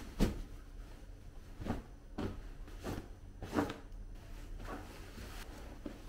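Cotton pillowcase rustling and swishing as a pillow is pushed and shaken into it by hand: a string of short fabric swishes and soft thumps, the loudest just after the start.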